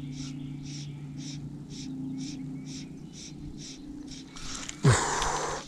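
A high chirp repeating about twice a second over a steady low hum. Near the end comes a sudden loud swish with a falling tone: the fly line ripping off the water as the fly rod is swept up to set the hook on a short strike.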